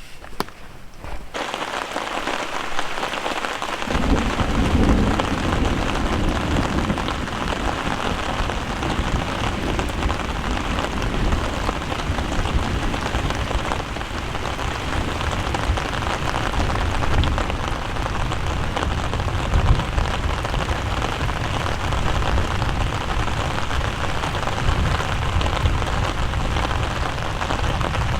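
Heavy rain pouring down, with deep thunder rumbling in about four seconds in and rolling on under the rain.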